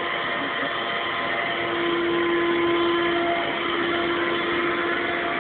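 Vacuum cleaner running steadily: a constant motor hum and airflow noise with a steady whine, which fades a little near the start and comes back.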